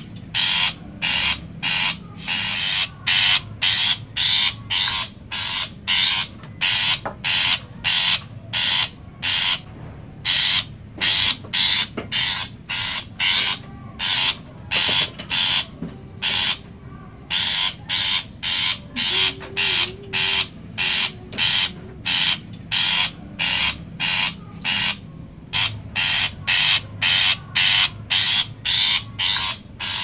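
Long-tailed shrike (cendet) calling in a long run of short, harsh, scratchy notes, about two a second, broken by a few brief pauses.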